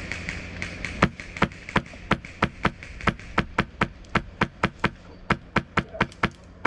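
Airsoft gunfire: a rapid, even string of sharp cracks, about four a second, starting about a second in and running almost to the end.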